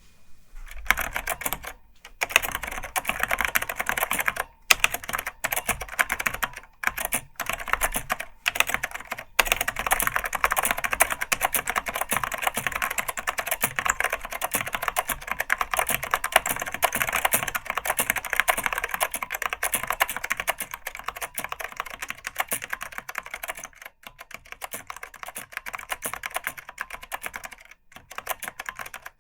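Fast, continuous typing on an Apple Extended Keyboard II with Alps-mount Mitsumi Standard Mechanical tactile switches and stock PBT keycaps: a dense run of key clicks broken by a few brief pauses.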